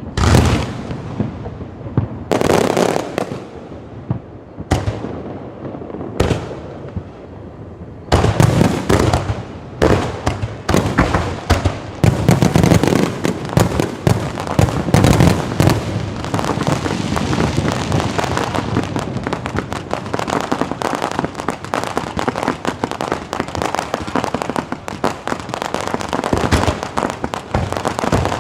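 Fireworks display: a few single bangs a couple of seconds apart, then from about eight seconds in a dense, rapid volley of bangs that runs together into continuous crackling.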